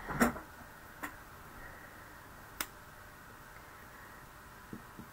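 Clicks and knocks of hard plastic stamping supplies being handled and set down on a desk. The loudest knock comes just after the start, a softer one about a second in, a sharp click about two and a half seconds in, and light taps near the end.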